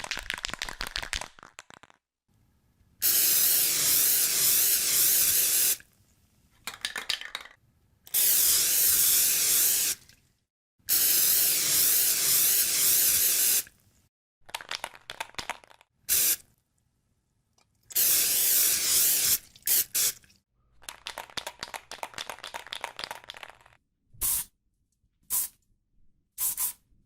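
An aerosol spray-paint can being shaken, its mixing ball rattling, and sprayed in three long hisses of about three seconds each. Further bouts of shaking follow, then a few short spurts near the end.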